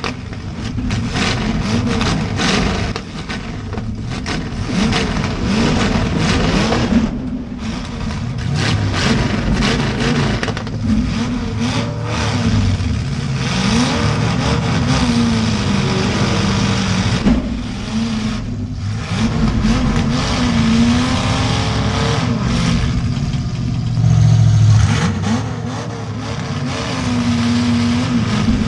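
Demolition derby car's V8 engine revving up and down repeatedly, with frequent sharp knocks and bangs from the car being driven and hit.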